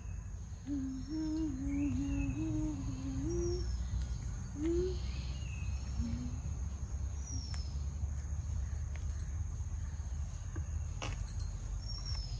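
Background ambience: a steady low rumble and a steady high-pitched tone, with scattered short high chirps and a faint wavering voice in the first few seconds.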